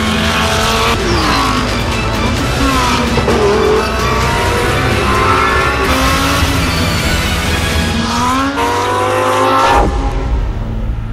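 Lamborghini Huracán GT3 EVO race car's V10 engine revving up and down through gear changes on track, over background music. About a second before the end the engine cuts off, leaving the music with a low rumble.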